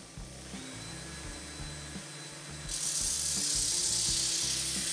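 Belt grinder running, then a steel rod pressed against its abrasive belt about two and a half seconds in: a loud, steady grinding hiss starts suddenly and holds.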